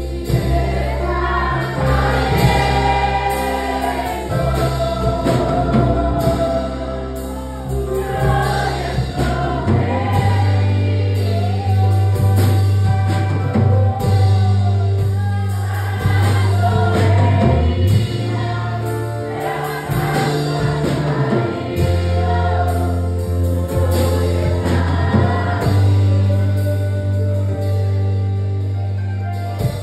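Two girls singing a Spanish-language worship song into microphones over music with long, held bass notes.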